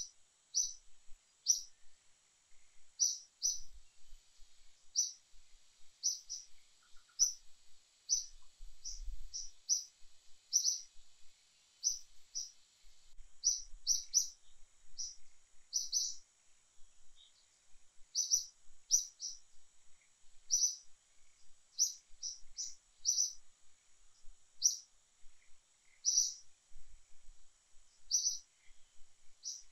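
A bird calling with short, high chirps repeated over and over, about one or two a second in uneven runs, over a faint steady high hiss.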